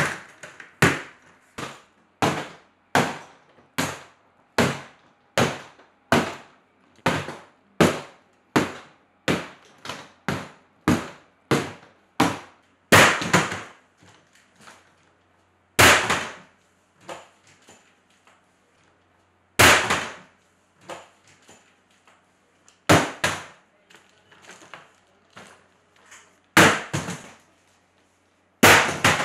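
A hard-shell suitcase being struck over and over as a strength test, sharp cracks about two a second for the first twelve seconds, then six louder single strikes a few seconds apart with light knocks between them.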